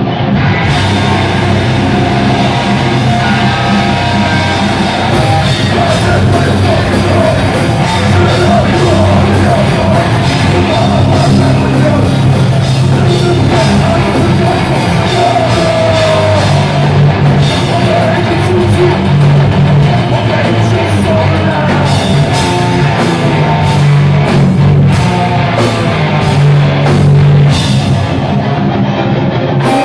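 Hardcore metal band playing live at full volume: distorted electric guitars, bass and drum kit, with vocals. The drums and cymbals come in about a second in.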